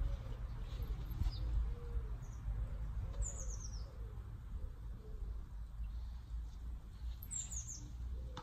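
A low steady rumble from a cake-candle firework burning underwater in an aquarium, its gas jetting up through the water. Over it a pigeon coos repeatedly, and a small bird gives a quick run of falling high chirps twice.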